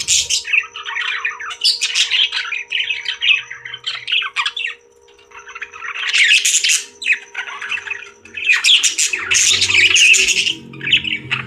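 Parrots squawking and chattering in harsh, raspy bursts, with a brief lull about five seconds in.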